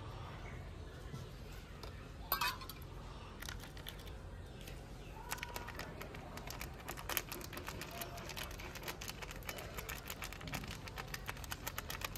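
Hands handling and sprinkling dry ingredients over rice in an aluminium pot. There is one sharp click about two seconds in, then a fast, irregular run of small ticks and crinkles through the second half.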